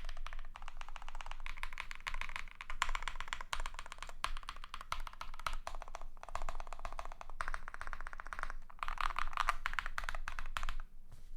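Typing on a custom KBD75 v3.1 mechanical keyboard with lubed KTT Kang White linear switches in a polycarbonate plate: fast runs of keystroke clicks in bursts with short pauses, stopping shortly before the end.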